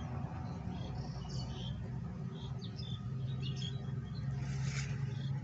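Small birds chirping in short, scattered high calls over a steady low hum.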